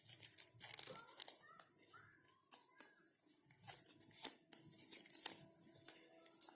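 Paper being handled and creased, crinkling, with many short sharp crackles.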